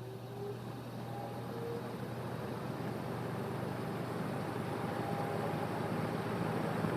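Kmart P-23 box fan starting up on its low setting: the motor hums and the blades slowly gather speed, the rush of air growing steadily louder. The start is slower than it should be, which the owner suspects comes from a rotor damaged during repair.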